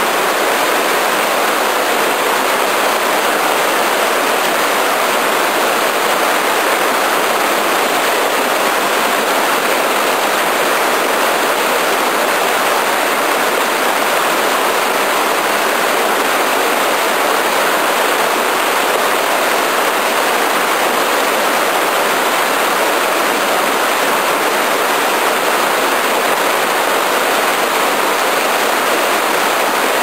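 Waterfall in three strands plunging into a pool: a loud, steady rush of falling water.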